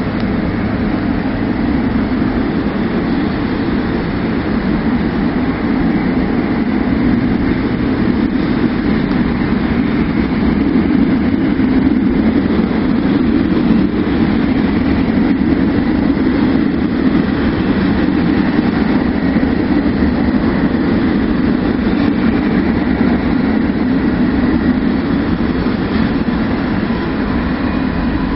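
Freight train of double-deck car-transporter wagons rolling past on the rails: a steady, loud rumble of wagon wheels on track that holds even throughout.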